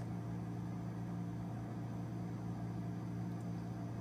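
A steady low hum with faint hiss, unchanging throughout, with no distinct squelches or handling sounds.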